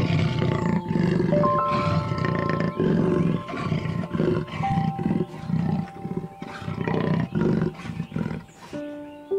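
Leopard calling: a run of rough, rasping grunts, about two a second, growing sparser near the end, with soft music notes held beneath.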